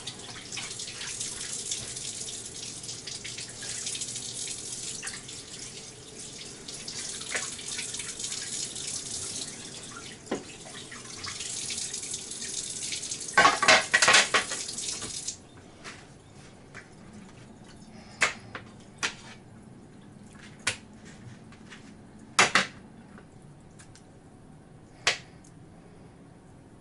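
Tap water running steadily into a sink, with a few loud clatters just before the water shuts off suddenly about 15 seconds in. After that come scattered light knocks and clicks.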